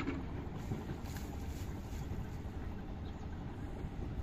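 Steady low wind rumble buffeting the microphone, with a few faint splashes and rustles as a fishing net is drawn through shallow, weedy water.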